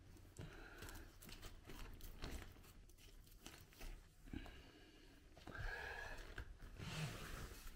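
Faint rustling and crinkling of a Tarptent Scarp 1's tent fabric and guyline as hands tug and adjust them, with a few light clicks and a slightly louder stretch about two-thirds of the way in.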